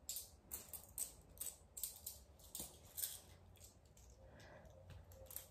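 Loose euro coins clicking against one another as they are slid and sorted by hand on a fabric mat: faint, a few clicks a second for about three seconds, then stopping.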